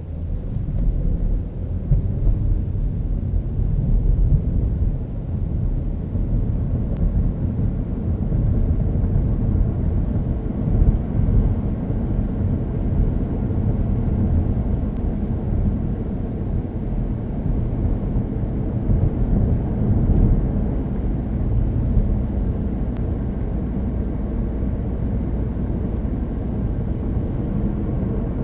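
A 2012 Chevrolet Cruze with its 1.4-litre turbocharged four-cylinder under way, heard from inside the car: a steady low rumble of engine and road noise. It grows louder over the first few seconds, then holds level.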